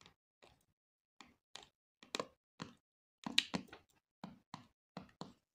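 Retaining clips of a Samsung Galaxy A20's frame snapping into place as fingers press the phone shut along its edge: about fifteen small, irregularly spaced clicks.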